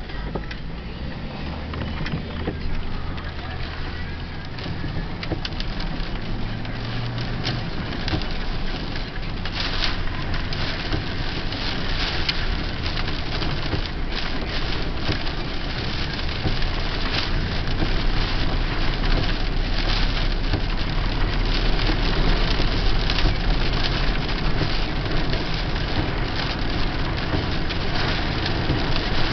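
Inside a moving car in heavy rain: rain crackling against the windshield and roof and tyres hissing on the flooded road over the low hum of the engine, growing louder in the second half.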